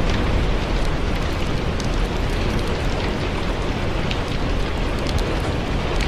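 Steady rain with a deep, even low rumble under it, mixed with a wood fire's scattered faint crackles.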